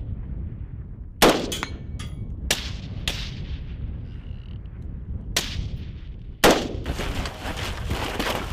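Scattered gunshots from an infantry squad's attack: about six separate sharp cracks at uneven spacing, the loudest about a second in and near six and a half seconds in, over a steady low rumble.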